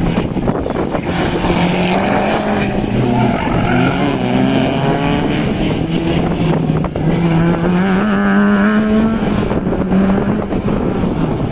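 Racing car engine pulling hard, its pitch climbing and dropping back several times through gear changes, with a brief wavering rev a little past the middle.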